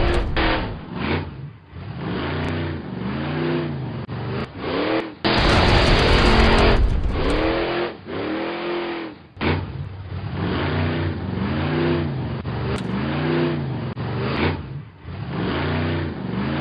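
Monster truck engine sound effect revving repeatedly, each rev rising and falling in pitch, with a stretch of loud, dense engine roar about five seconds in.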